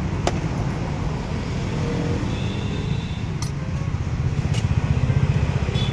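Steady low rumble of road traffic passing the stall, with a few sharp clicks.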